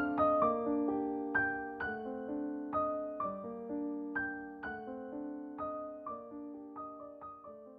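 Background music: a gentle piano melody with notes struck about every half second, fading out toward the end.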